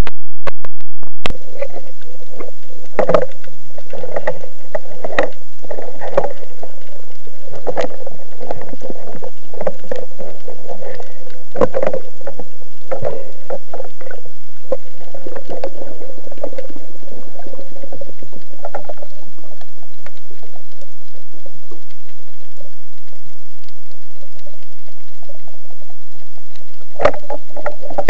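Muffled underwater noise through a camera's waterproof housing: water rushing and sloshing past with irregular knocks and clicks over a steady hum. It settles to a steadier hiss about two-thirds of the way through and picks up again near the end.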